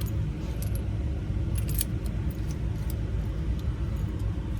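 A key worked in and out of a freshly coded ignition lock cylinder and turned, with small metallic clicks and keys jangling, over a steady low rumble.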